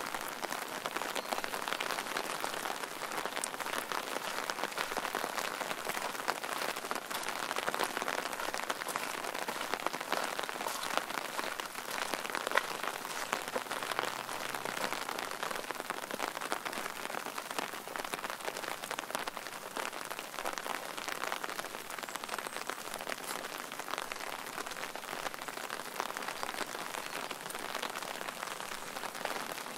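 Steady rain falling, a dense patter of many small drops striking surfaces with no pause.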